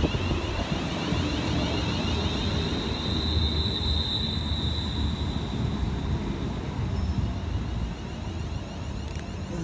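Class 350 electric multiple unit running at the station: a steady low rumble with a high electric whine that swells a few seconds in and then fades.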